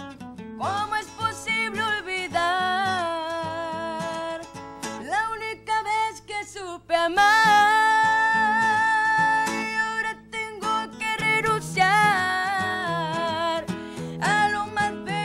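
A woman singing a Spanish-language song, holding long notes with vibrato, while accompanying herself on acoustic guitar. There are short breaks between sung lines where only the guitar carries on.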